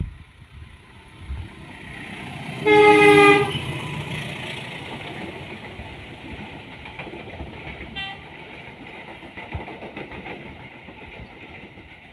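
A train horn blows one loud blast of just under a second, about three seconds in, followed by the steady rumble of a train running along the tracks. A second, brief and fainter horn toot comes about eight seconds in.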